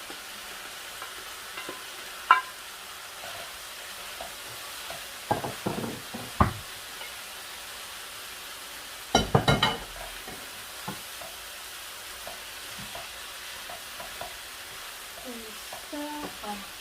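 Onions, peppers and freshly added tomatoes sizzling steadily in olive oil in a pan, stirred with a utensil that knocks against the pan once about two seconds in and clatters in two short runs, about five and nine seconds in.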